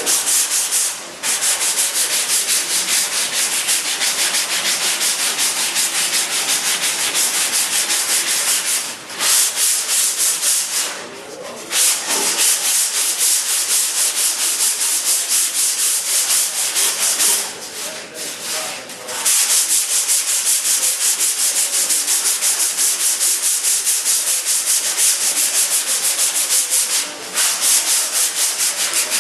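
Sandpaper rubbing by hand in quick, even back-and-forth strokes, a loud scratchy hiss that pauses briefly a few times before starting again.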